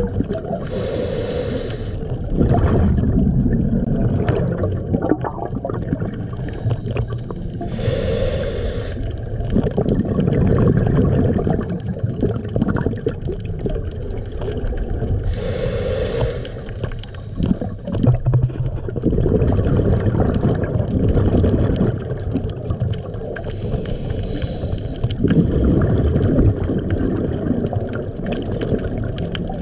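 Scuba diver breathing through a regulator underwater: a short hissing inhale about every seven to eight seconds, each followed by a long, low bubbling rumble of exhaled bubbles.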